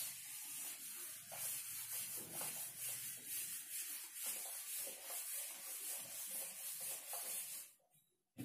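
Handheld whiteboard eraser rubbing across a whiteboard in back-and-forth strokes, a dry scrubbing hiss pulsing about twice a second. It stops about a second before the end.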